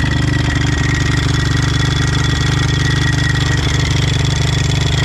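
Honda TRX450R quad's single-cylinder four-stroke engine idling steadily with an even, rapid pulse.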